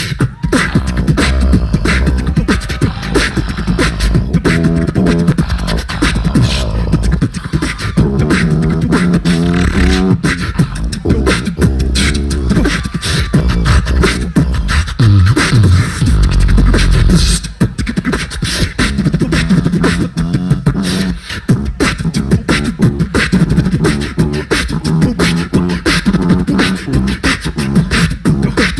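Two beatboxers performing a tag-team routine into microphones through a PA in a drum and bass style: fast, dense clicking snares and hi-hats over deep vocal bass and hummed pitched lines, with a long deep bass note a little past halfway.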